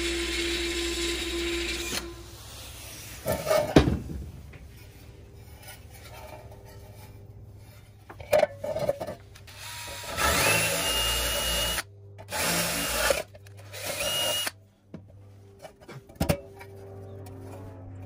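Cordless drill boring out rivets in the pressed-steel bed of a Tonka toy truck, in three short runs; on the first it spins up with a rising whine. Before that comes a couple of seconds of steady hiss from the media-blast gun, then a few knocks of metal parts being handled.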